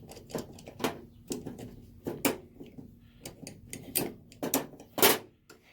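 Metal water pump pliers clicking and clacking as they are handled and their push-button adjustment worked, a dozen or so irregular knocks with a louder clack about five seconds in.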